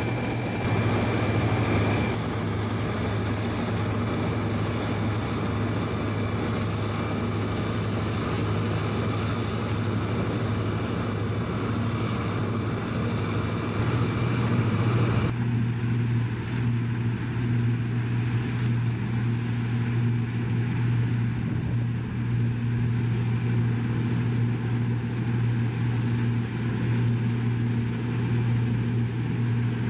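New Holland combine harvester running while threshing wheat: a steady, loud engine and machinery drone with a low hum. The sound changes abruptly about two seconds in and again about fifteen seconds in.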